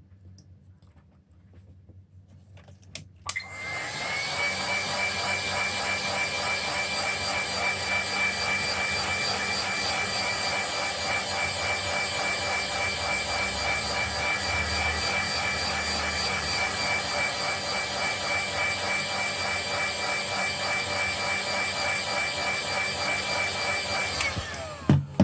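A small high-speed electric motor is switched on with a click and spins up to a steady whine with rushing air noise. It runs evenly for about twenty seconds, then is switched off and winds down, with another click near the end.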